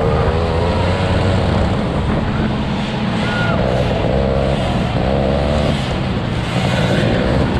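Engine of a 50cc two-stroke motocross bike heard from on board, its pitch rising and falling again and again as the throttle is opened and closed through the turns.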